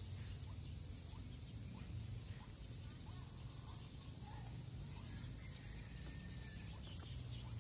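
Quiet outdoor ambience: a steady high insect drone with faint, scattered bird chirps over a low steady hum. There is a faint click about six seconds in.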